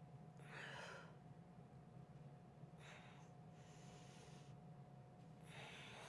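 Faint breathing of a woman exercising: three soft breaths, about a second in, around three seconds in and near the end, over a faint steady hum of room tone.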